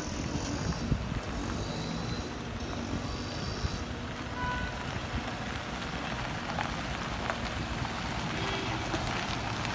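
A convoy of SUVs, led by a Mitsubishi Pajero Sport, driving slowly past at close range: steady engine rumble and tyre noise on the road.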